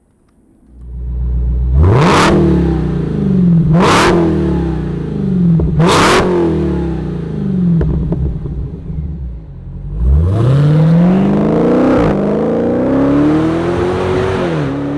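Dodge Challenger Demon 170's supercharged 6.2-litre V8 accelerating and revving. There are three sharp loud peaks about two seconds apart, then one long climb in engine pitch from about ten seconds in.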